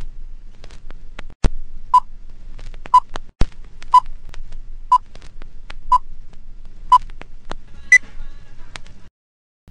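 Old-film countdown leader sound effect: a short beep once a second, six times, then a single higher beep, over scratchy film crackle with scattered clicks, two louder pops and a low hum. The sound cuts off suddenly just before the end.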